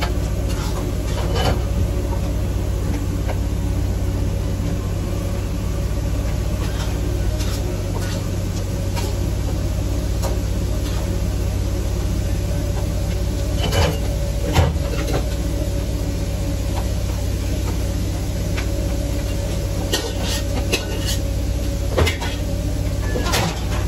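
Steady low machine hum of a food truck's running kitchen equipment, with scattered clicks and clatters of kitchen work and a couple of sharper knocks past the halfway point and near the end.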